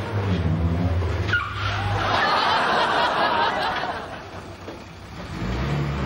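Classic Mini's four-cylinder engine running at low speed, with a short falling squeal about a second in as the car pulls up. A burst of studio-audience laughter follows, and the engine comes back in near the end as the Mini creeps forward.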